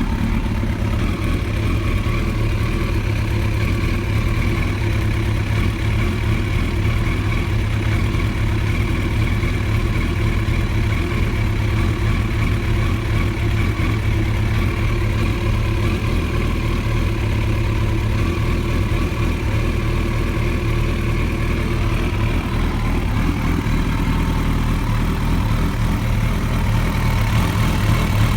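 Engine idling steadily with a rough idle, a fault whose cause is still being tracked down.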